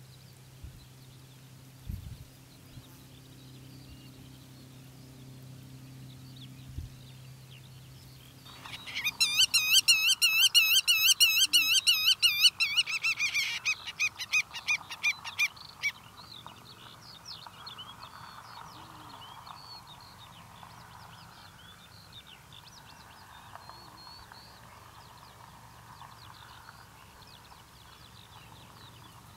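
Black-tailed godwit calling: a loud, fast run of repeated notes, about five a second, starting about eight seconds in and slowing before it stops some seven seconds later. Fainter calls of other birds follow.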